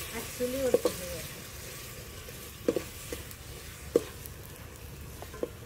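Mutton keema sizzling in a steel pot over a wood-fired chula as it is stirred, with a few sharp metallic clinks of the spoon against the pot.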